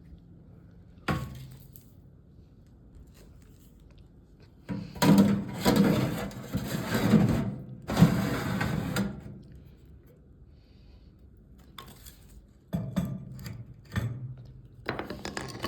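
Metal toaster-oven tray rattling and knocking as it is emptied, in a dense stretch of clattering in the middle, with single sharp clicks and knocks before and after.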